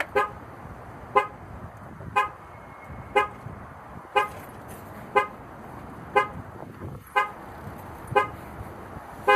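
Car horn giving short honks about once a second, the regular pulsing of a car alarm, typical of a locked car's alarm set off when its door is opened without the key. Just at the end a louder, held horn tone begins.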